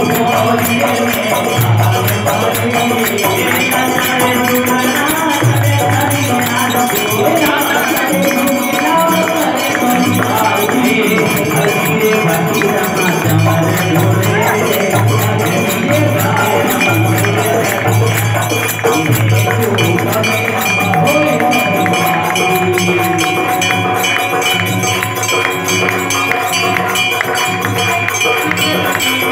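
Devotional aarti music played loud and steady, with fast, continuous jingling percussion like tambourine or small hand cymbals over a repeating bass line.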